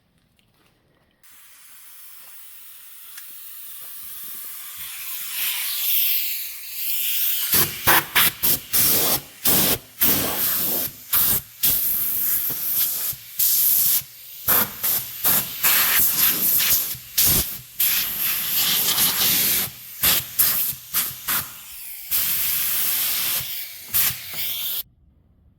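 Compressed-air paint spray gun hissing: a steady hiss builds for several seconds, then gives way to many short spurts as the trigger is pulled and released, and it cuts off suddenly near the end.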